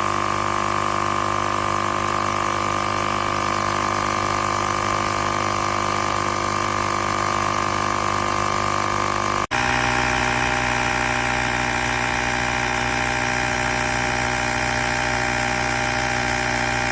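AstroAI L7 cordless electric air compressor running steadily, a continuous motor-and-piston hum. The tone changes suddenly about halfway through.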